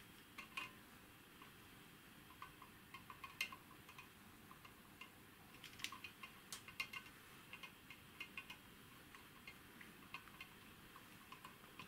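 Faint, irregular small clicks and taps of hands handling an opened aircraft altimeter, fingers and metal parts of its exposed mechanism knocking lightly together as it is turned.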